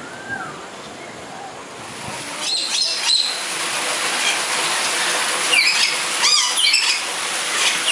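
Birds chirping and squawking, with a run of quick, repeated up-and-down calls in the second half, over a steady rushing hiss that swells about two seconds in.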